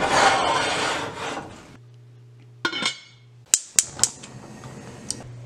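Heavy enamelled cast-iron pot scraping across a gas stove's cast-iron grates for a second and a half or so, then a short metal clank. A few sharp clicks follow as the burner knob is turned.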